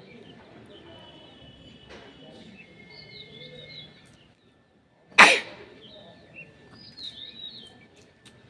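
A single loud sneeze about five seconds in, short and sharp, over birds chirping in the background.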